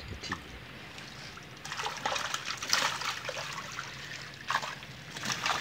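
Water trickling and splashing off a mesh keepnet of tilapia as it is hauled up out of the reservoir. The splashing starts about two seconds in and goes on unevenly.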